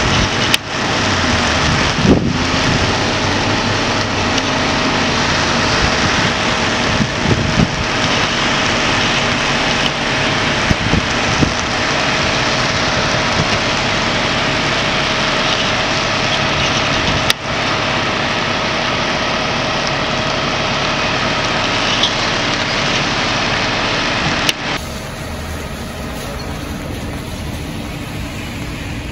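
Fire engines running steadily at a fire scene, a dense engine-and-pump drone with a faint steady hum and a constant hiss. It drops to a quieter level near the end.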